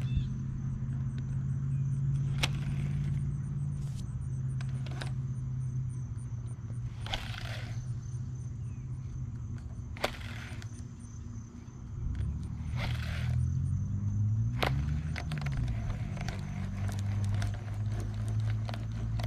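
A motor running steadily nearby, a low even hum whose pitch shifts and wavers briefly about two-thirds of the way through. Over it come scattered light clicks and a couple of short swishes as a baitcasting reel is handled.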